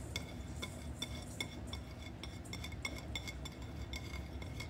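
Light, irregular clinks, a few a second, each with a short ring, as grated citrus zest is tapped and scraped off a ceramic plate into a stainless steel mixing bowl.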